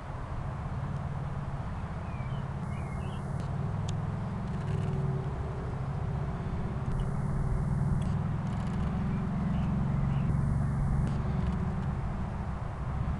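Small motorbike engine running as it rides along, getting gradually louder as it comes closer.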